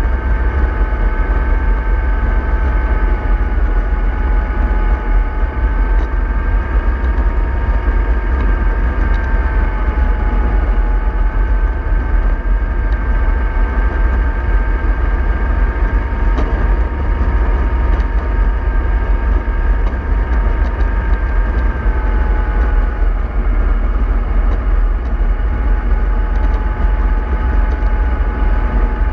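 Remote-control model of a MAN 24.310 bus running steadily: a constant low rumble with a steady whine that shifts slightly in pitch now and then.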